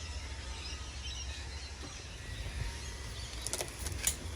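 Quiet background: a steady low rumble with faint bird chirps, and a few sharp clicks near the end.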